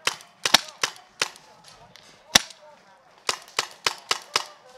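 Paintball markers firing: about a dozen sharp pops in irregular clusters, with a single loud shot about halfway through.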